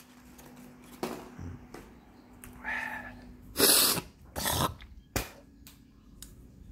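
Small white dog giving a short whine, then two loud, sharp barks less than a second apart.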